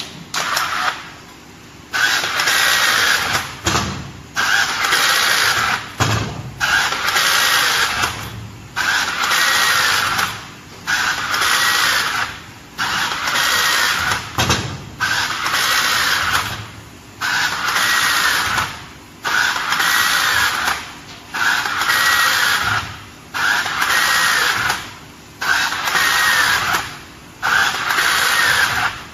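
Cordless battery-powered rebar tying tool tying one rebar crossing after another: each tie is a short motor whir as the tool feeds, wraps and twists the wire, repeating about once every two seconds after a quieter start.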